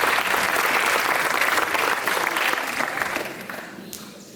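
Audience applauding and clapping, a dense steady clapping that dies away toward the end.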